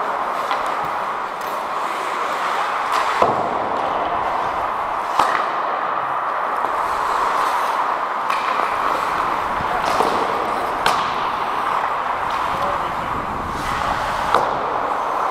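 Ice hockey play on a rink: a steady hiss of skate blades on the ice, broken by about five sharp cracks of sticks and puck.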